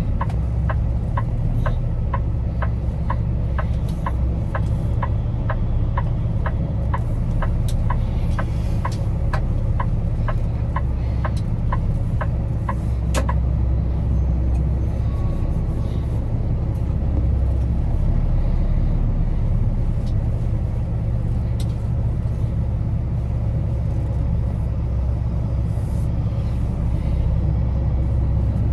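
Kenworth T880 ready-mix truck's diesel engine and drivetrain rumbling steadily while driving, heard from inside the cab. A regular ticking runs along with it and stops about halfway through.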